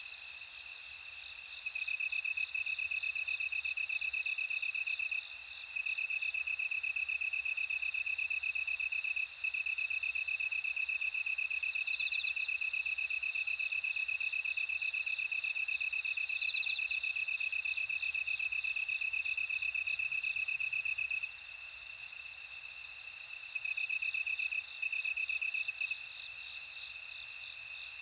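Several crickets singing together, among them bell crickets with high ringing trills. A steady high trill overlaps higher pulsed trills that start and stop in turns.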